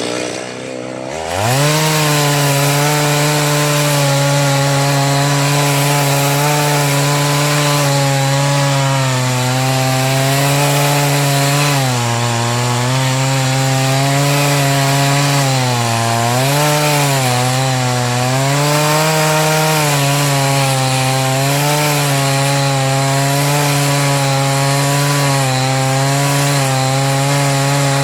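Chainsaw revving up sharply about a second in, then running at high throttle while cutting wood. Its pitch dips briefly several times as the chain loads up in the cut.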